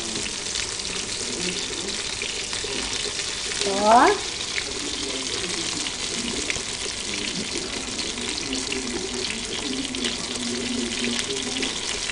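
Fish sticks frying in hot oil in a nonstick pan: a steady sizzle full of small crackles. About four seconds in, a brief rising squeak-like tone stands out as the loudest sound.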